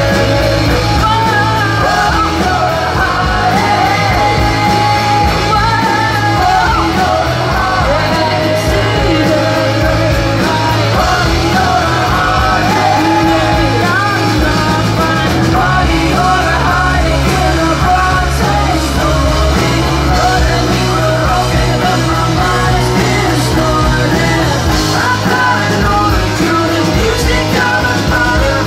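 A rock band playing live, with electric guitars, electric bass and a drum kit, and a sung vocal line over them.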